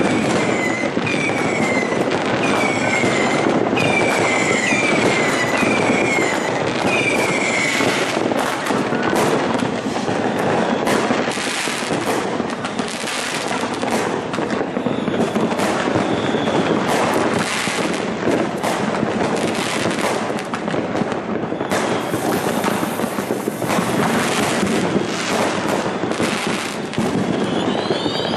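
Fireworks: a continuous barrage of bangs and crackling from rockets and firecrackers going off. A string of short whistles repeats through the first eight seconds, and a rising whistle comes near the end.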